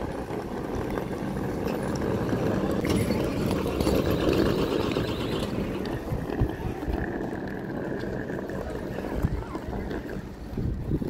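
Wheeled suitcases rolling over concrete pavement, with footsteps: a continuous low rumble broken by many small irregular knocks.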